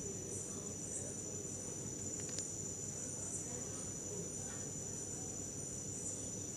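Rice and soya chunks boiling in a pot of water on a gas stove, a low steady bubbling, with a steady high-pitched tone above it.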